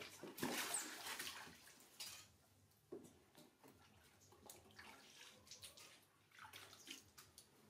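Water splashing and dripping in a plastic tub as a wet macaque is lifted out of its bath, loudest in the first two seconds, followed by small, fainter splashes of a hand dabbling in the water.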